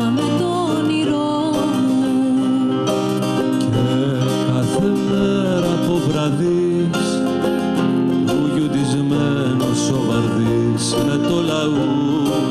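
Live band of plucked string instruments, lutes and acoustic guitar, playing a song, with a wavering melody line over steady lower notes.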